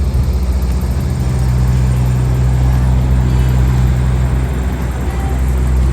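Steady low drone of a camper van being driven, engine and road noise.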